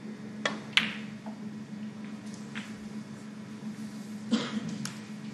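Snooker shot: the leather cue tip strikes the cue ball, then a sharp click of the cue ball hitting an object ball a moment later. Two more knocks of balls follow near the end, over a steady low hum.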